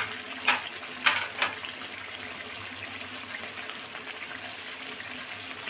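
Thick curry gravy simmering and bubbling in a metal pot, with three short scrapes of a spatula against the pot in the first second and a half.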